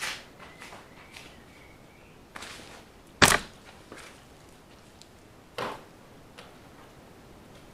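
Irregular knocks and clatter of hard objects being handled and set down on a wooden table. One sharp, loud knock comes about three seconds in and a second clear one a couple of seconds later.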